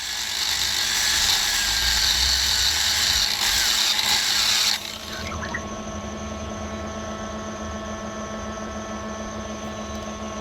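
Electric stone-polishing machine running, with a loud grinding hiss of stone against the wheel for about the first five seconds that stops suddenly, leaving the motor's steady hum.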